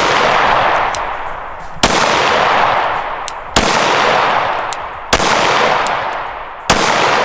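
Pistol shots fired one at a time, four about a second and a half apart, each followed by a long echoing tail.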